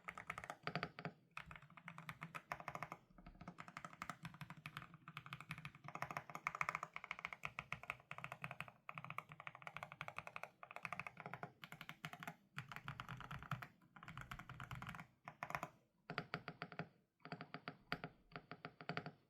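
Fast typing on a GMK67 custom mechanical keyboard with lubed Outemu Hanny switches: dense runs of keystrokes a few seconds long, broken by brief pauses.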